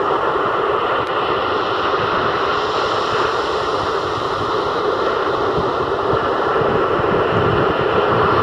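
Rough sea surf breaking and washing up onto the shore, a continuous rush of noise with no pauses.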